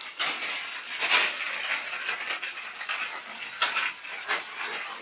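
BMX bike clattering and rattling as it is ridden on wheelies over a concrete floor, with louder metallic knocks about a second in and again about three and a half seconds in.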